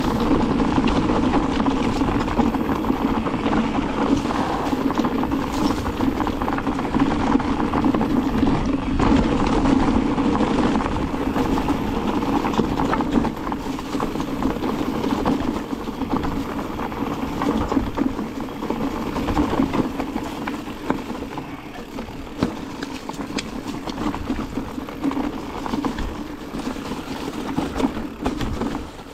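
Mountain bike rolling down a dirt singletrack strewn with dry leaves: tyres crunching over dirt and leaves with a steady rush of noise, and the bike rattling and knocking over bumps. It gets somewhat quieter from about halfway.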